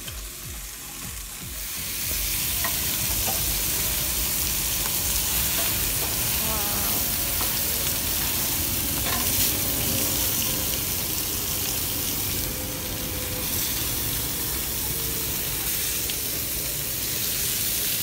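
Meat sizzling on a gas barbecue grill, with fat flaring over the burners; a steady hiss that grows louder about two seconds in.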